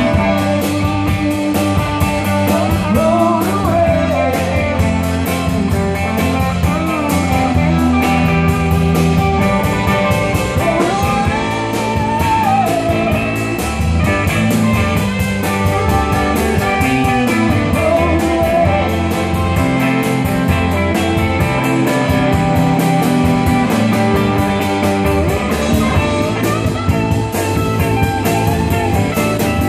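A live rock band playing: electric guitars, electric bass and a drum kit, with a melodic lead line that bends and wavers in pitch above the groove.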